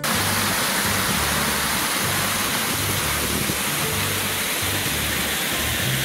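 Small waterfall spilling over rocks into a shallow creek: a steady, loud rush of splashing water. Background music with low bass notes plays underneath.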